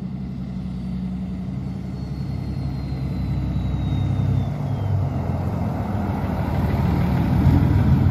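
6.7 L Cummins turbo-diesel of a Ram pickup fitted with an S467 turbo, running as the truck rolls closer, its low engine rumble growing steadily louder.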